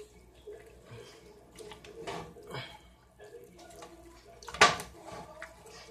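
Wooden spoon stirring spaghetti in a metal pot: wet squishing of the noodles and the spoon scraping, with one sharp knock of spoon against pot about four and a half seconds in.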